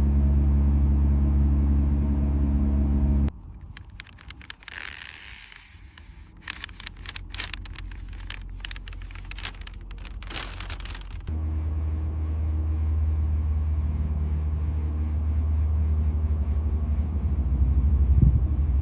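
A steady low machine drone that cuts off about three seconds in. For several seconds after that there is quieter scraping and crackling, and then the drone comes back and holds.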